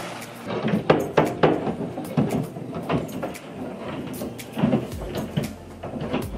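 Irregular knocks and thuds of roofers tearing off the old asphalt shingles. Near the end the same work is heard from inside an upstairs room beneath the roof.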